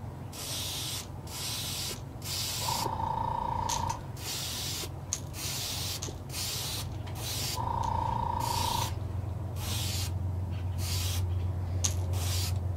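Airbrush spraying transparent yellow paint onto a crankbait in short hissing bursts, about one a second, as a second coat goes on. A low steady hum runs underneath, and a steady tone sounds twice, about a second each time.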